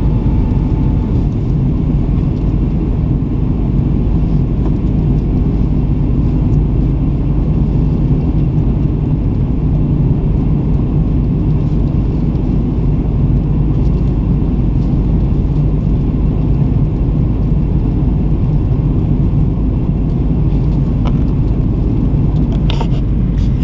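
Steady engine and rushing-air noise inside the cabin of an Airbus A330 climbing out after take-off, its Rolls-Royce Trent 700 engines at climb power, heavy in the low range. A few brief clicks near the end.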